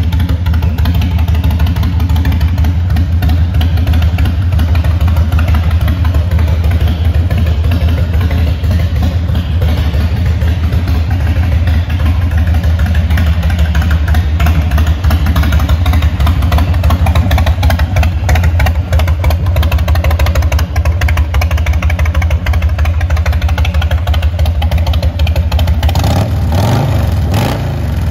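2006 Harley-Davidson Night Train's air-cooled Twin Cam 88B V-twin idling steadily with a loping, pulsing exhaust beat through its stock staggered dual pipes. The pitch rises and falls briefly near the end.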